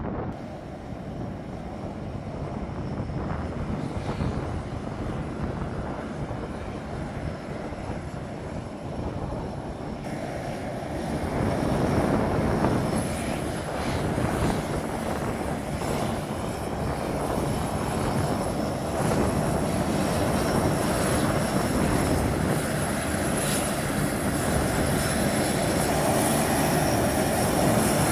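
Turboprop engines of a line of taxiing C-130 Hercules transports running steadily, the lead aircraft a C-130J with six-bladed propellers. The sound grows louder about twelve seconds in, and a thin high whine sits over the engine noise from then on.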